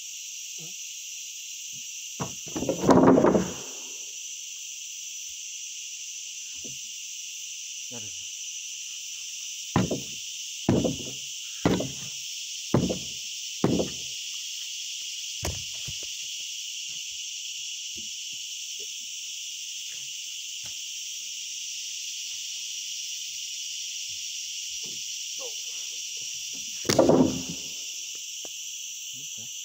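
Heavy wooden thuds and knocks from sawn ulin (ironwood) timber being handled and levered apart: a loud thud about three seconds in, then a run of about six knocks roughly a second apart, and another loud thud near the end. A steady high insect chorus runs underneath.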